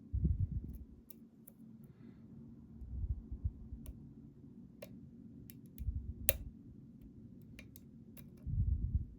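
Lock picking: a thin steel pick working the pins of a challenge lock held under tension, giving scattered small sharp clicks, the loudest about six seconds in. Dull low bumps from the lock being handled come in now and then.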